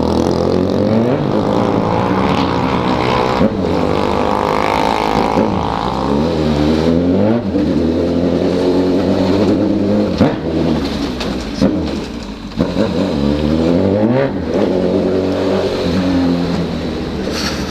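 Honda CB1000 inline-four motorcycle with a 4-into-1 exhaust, revving up and dropping back repeatedly for the whole stretch, loud, with short breaks between blips of the throttle.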